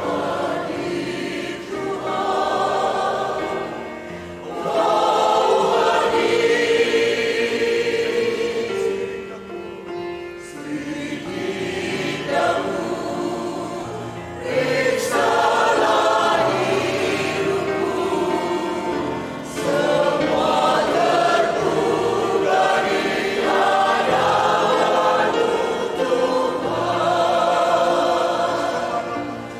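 Mixed choir of women's and men's voices singing a hymn in Indonesian in harmony, in phrases that swell and fall away, softening about ten seconds in before a louder new verse begins around fifteen seconds.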